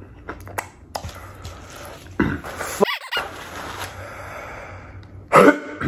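A man reacting to the heat of spicy jalapeño food: soft mouth and chewing clicks, then a loud coughing vocal burst about two seconds in, open-mouthed heavy breathing, and another short loud vocal sound near the end.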